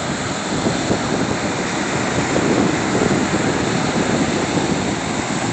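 Small waves breaking and washing up on a sandy beach: a steady rushing surf noise that swells a little around the middle.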